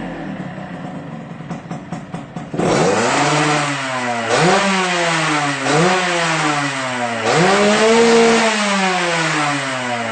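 Yamaha RX-King two-stroke single-cylinder engine with an aftermarket CMS exhaust, idling unevenly with some crackles, then revved in four throttle blips. The last blip is held longest and is the loudest, and the engine falls back toward idle near the end.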